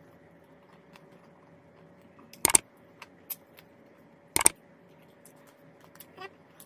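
Two sharp mouse-click sound effects about two seconds apart, from an animated like-and-subscribe button overlay, with a few fainter ticks and a quiet steady hum between them.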